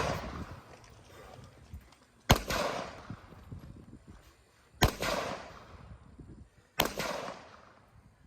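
Three single gunshots, spaced about two to two and a half seconds apart, each trailing off in a short echo.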